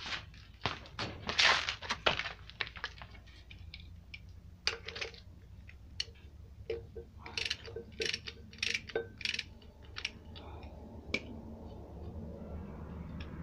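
Metal hand tools clinking and clanking: a socket and wrench being set onto and worked on the flywheel bolts of a Peugeot 504 diesel engine. It comes as a series of sharp, irregular clicks and knocks, the loudest in the first couple of seconds.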